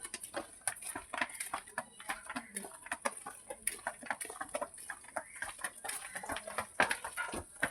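Dairy-farm ambience: scattered short knocks and clicks, irregular throughout, over a steady high hiss.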